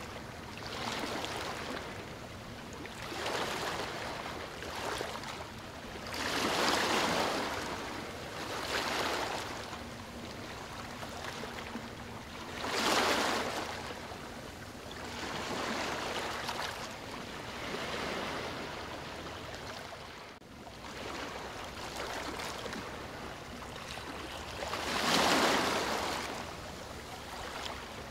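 Water rushing in repeated swells, each building and washing away over a second or two, every two to four seconds, like waves surging.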